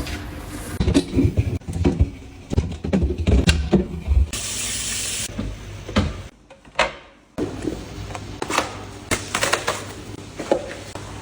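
Household handling sounds: a string of knocks and clicks of objects being handled, with a hiss lasting about a second roughly four seconds in.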